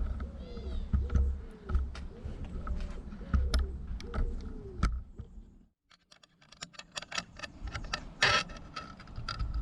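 Light clicks, taps and rattles of a motorcycle clutch cable and its small fittings being handled and fed into place. There is a brief silent gap past the middle, then quicker clicking and a short scrape near the end.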